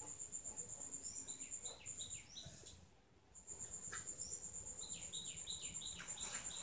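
Faint high insect trill, pulsing rapidly and steadily and breaking off briefly about three seconds in, with short falling bird chirps over it, more of them near the end.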